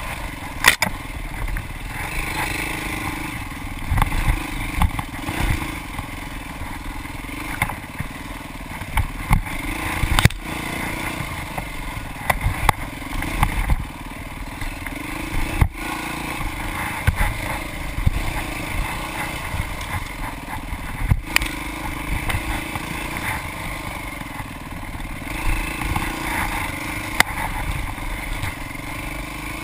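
Off-road dirt bike engine running and revving under way, heard close from the rider's helmet camera, with frequent sharp knocks and rattles through the ride.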